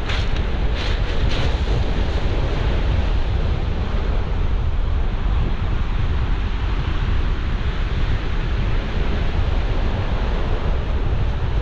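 Surf breaking and washing up a shingle beach, with strong wind buffeting the microphone as a steady low rumble. A few short crunches near the start, footsteps on the pebbles.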